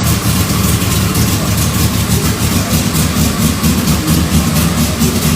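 Naturally aspirated straight-six engine of a Chevrolet Opala Old Stock race car, running steadily at idle. It is loud, with an even, pulsing exhaust beat.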